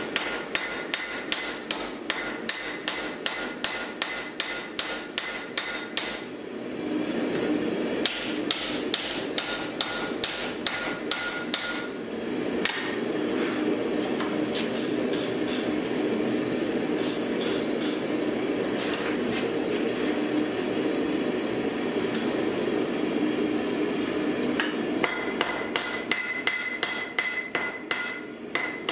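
Hand hammer striking a white-hot axe head on a steel anvil in quick, regular blows, about three a second, with the anvil ringing: forge-welding the eye of a Dane axe. The blows thin out and stop for a stretch in the middle, where a steady rushing noise takes over, and the quick hammering resumes near the end.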